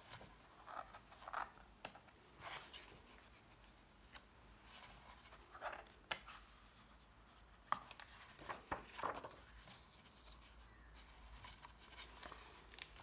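Pages of a hardbound book being turned and smoothed flat by hand: a series of faint paper swishes and rustles, with a few light taps.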